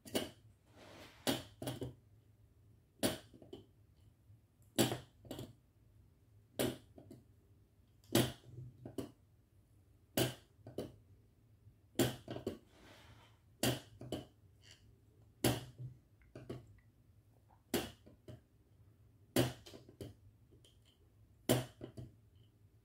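Light, sharp clicks and taps about every two seconds, each followed by a few softer ones, as a soldering iron tip and solder wire touch the pins of an IC socket on a through-hole circuit board, soldering one joint after another.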